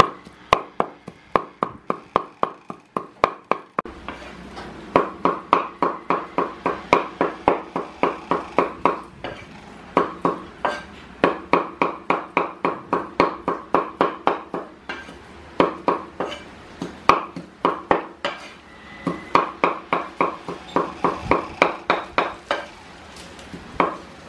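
Meat cleaver chopping raw chicken into mince on a wooden chopping board: quick, steady strikes, about three or four a second, in runs broken by short pauses.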